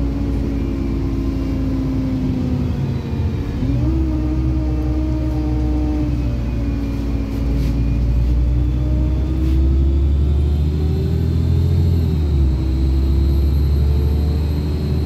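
Inside a LiAZ-5292 city bus under way: steady engine and drivetrain hum over a low road rumble. The pitch shifts twice, about three and a half seconds in and again near twelve seconds. A thin high whine comes in about ten seconds in.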